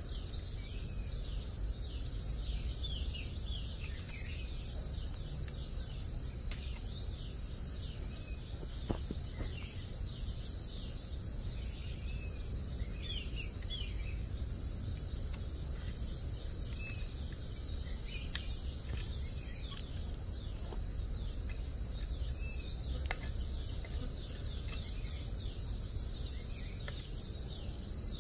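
Insects droning steadily in a high pitch, with scattered short chirping calls, a few faint clicks and a low steady background noise.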